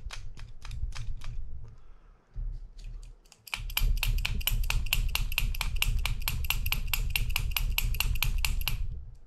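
A steel adjustable wrench, used as a hammer, tapping on a jammed spinning reel to shake loose a crosswind-block rod that is wedged on top of its groove. Metal-on-metal taps with a bright ring: a few spaced taps, a short pause, then quick, even taps of about five a second until near the end.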